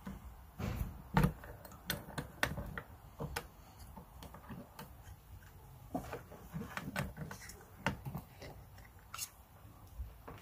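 Irregular clicks and taps of a small clear Lexan (polycarbonate) lure bib and a small bench vise being handled as the bib is pressed and bent by hand; the loudest click comes about a second in.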